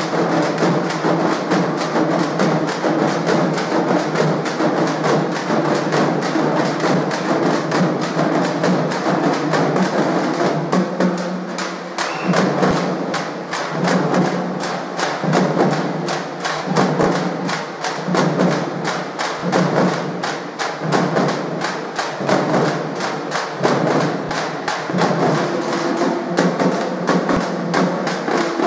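Loud music driven by fast percussion: a rapid, even clicking beat over drums, with a low pitched part that pulses in time, more clearly from about halfway through.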